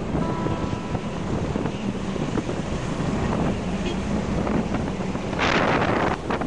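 Wind rushing over the microphone of a camera carried on a moving motorcycle, with road noise underneath. About five and a half seconds in, the rush grows louder for a moment.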